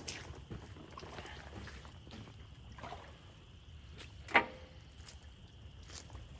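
Sloshing and squelching in mud and water with scattered small knocks. One sharp, ringing knock comes about four seconds in.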